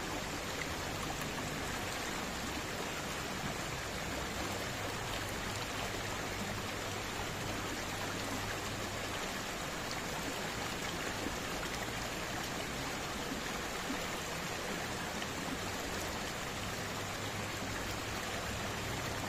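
Shallow, rocky river flowing over stones: a steady rush of running water.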